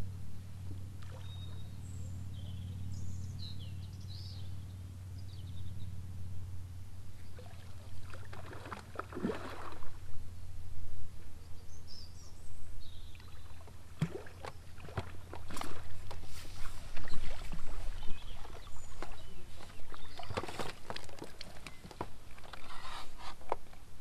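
A hooked fish splashing and thrashing at the surface as it is drawn in on a pole, followed by water sloshing and a run of sharp knocks and splashes, loudest about two-thirds of the way through. Faint bird chirps come and go.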